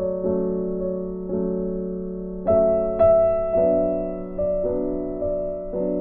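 Background music of slow sustained chords, a new chord struck about every half second to a second, each fading away before the next.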